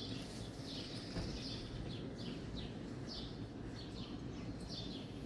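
Small birds chirping, faintly: a steady run of short, high, falling chirps, two or three a second, over a low steady background noise.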